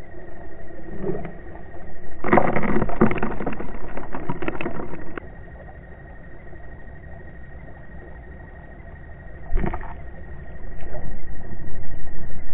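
Steady mechanical hum heard underwater, pulsing evenly, with a thin high tone held over it. Louder rushing noise comes from about two to five seconds in, briefly again near ten seconds, and the hum grows louder near the end.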